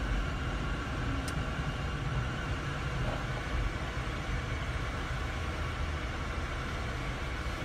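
Steady car noise heard from inside the cabin: a low engine and road hum as the car drives slowly.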